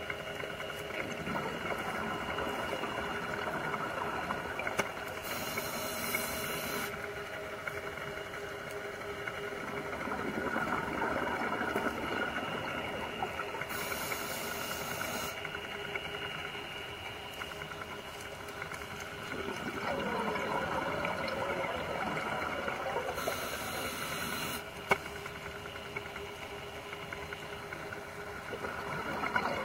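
Scuba diver breathing through a regulator, heard underwater through the camera housing: short hisses and longer bubbling swells that come round about every nine seconds, over a steady hum.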